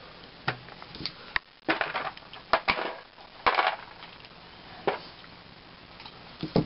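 Scattered light clicks and knocks, with a few short rustling noises, as galvanized steel chainmail rings and a pair of needle-nose pliers are handled on a table.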